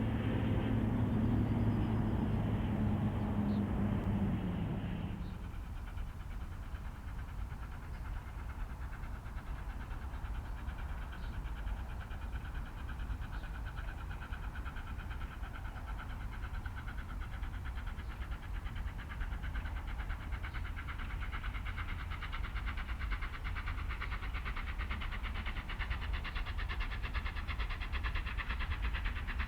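Steam train running on a heritage railway. For the first few seconds there is a steady drone whose pitch falls about four seconds in. It then changes abruptly to a quieter, rapidly beating sound that slowly grows louder toward the end.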